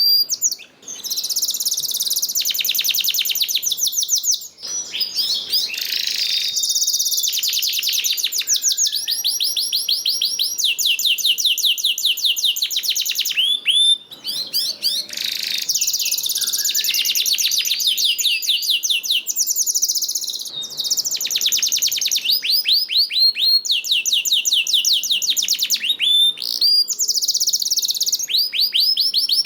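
Domestic canary singing: long, fast trills of rapidly repeated high chirps, changing tempo from phrase to phrase, with only brief pauses.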